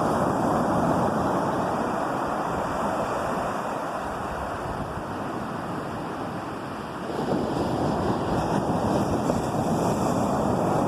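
Sea waves on a shore: a steady rush of surf that eases off in the middle and swells again as a new wave comes in about seven seconds in.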